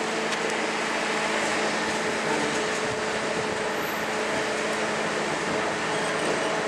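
Steady mechanical hum of a cog railway train at rest or creeping, with a faint held tone over an even rush of noise.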